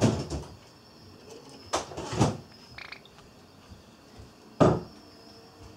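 Four sharp knocks and rattles in a wire birdcage as a Java sparrow pecks and tugs at a komatsuna leaf clipped to the bars.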